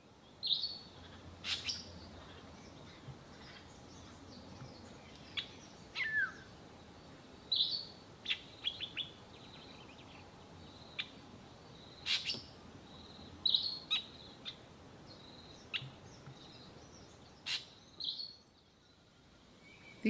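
Black-bellied starling mimicking the African goshawk's call: short, sharp high notes every few seconds, with quick clicking notes scattered between them.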